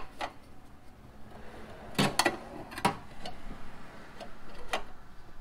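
Scattered hard plastic clicks and knocks as a plastic fender shroud is pushed and worked into place along the fender edge, loudest in a quick cluster about two seconds in.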